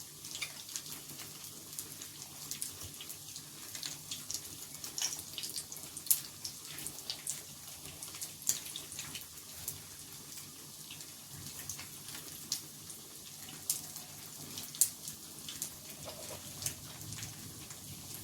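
Falafel deep-frying in hot oil: a steady sizzle with irregular sharp pops and crackles, a few louder pops about six, eight and a half and fifteen seconds in.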